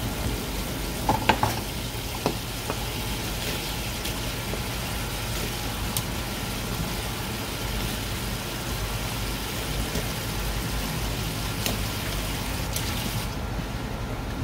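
Steady hiss of running water, with a few light clicks and knocks in the first few seconds. The hiss cuts off about a second before the end.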